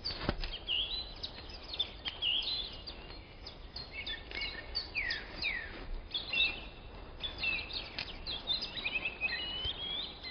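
Several songbirds singing in a spring forest: many short chirps and whistles, some sliding down in pitch, with a run of quick trilling notes near the end, over a faint steady background.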